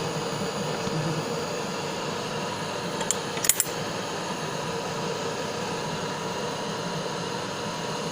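Handheld butane kitchen blowtorch flame hissing steadily while heating a metal mould, with a few light metallic clinks about three seconds in.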